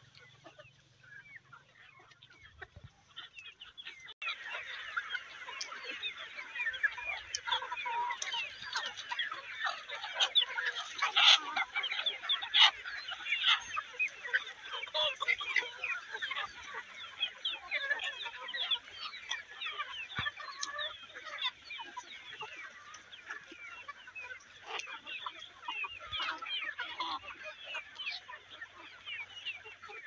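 A flock of free-range chickens clucking and calling. Many short calls overlap, rising abruptly into a dense chorus about four seconds in.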